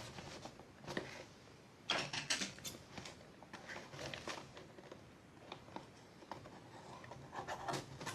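Hands handling and working at a cardboard product box to open it: irregular taps, clicks and scrapes, the loudest cluster about two seconds in.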